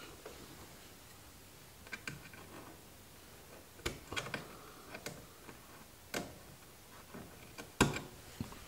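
A staple gun firing staples through headliner fabric into the tack strip of a 1951 Chevy's roof. Several sharp clicks come at irregular intervals, with the loudest near the end.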